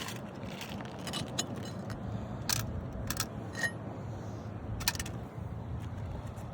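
Scattered light metallic clinks and scrapes of roofing nails and a pry tool being worked out of an old asphalt shingle, a few irregular clicks over a steady low background noise.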